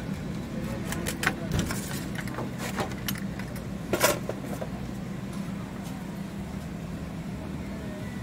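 A steady low mechanical hum with scattered light clicks, and one sharper knock about four seconds in.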